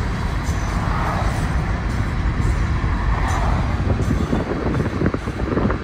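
Steady low rumble of a car driving alongside a moving freight train, road noise and train noise mixed together, with a run of rattling clicks in the second half.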